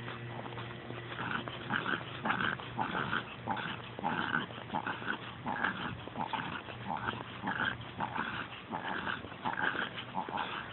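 Pekingese dog panting hard and fast, a quick, even rhythm of breathy huffs, the sign of a dog over-stimulated on a walk.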